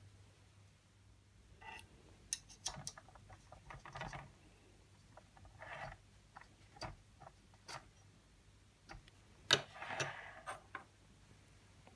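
Scattered light clicks, taps and rustles from hands handling a small copper toy steam-engine boiler and a plastic filling funnel, as the funnel is lifted off and set down. The sharpest click comes about nine and a half seconds in, followed by a short rustle.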